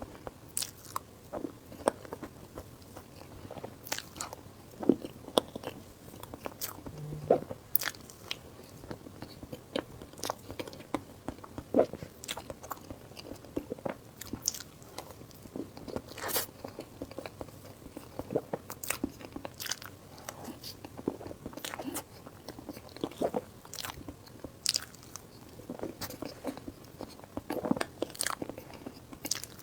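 Close-miked eating: a person biting and chewing, with frequent sharp crunches at an irregular pace.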